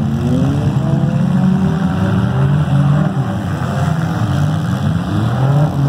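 Engines of several demolition derby cars running and revving, their pitch rising and falling as they accelerate and back off.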